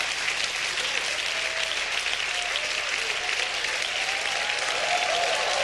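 Congregation applauding steadily, with a few faint voices calling out over the clapping.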